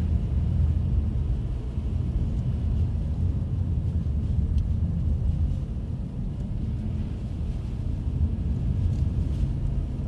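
Steady low rumble of a vehicle driving on a snow-covered road, heard from inside the cabin.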